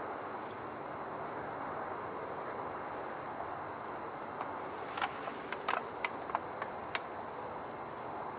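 Steady outdoor background noise with a constant high-pitched whine, and a handful of sharp clicks about five to seven seconds in.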